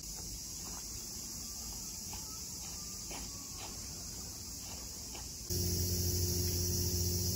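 Outdoor evening ambience of insects droning steadily at a high pitch, with a few faint short chirps. About five and a half seconds in, it suddenly grows louder and a steady low hum joins in.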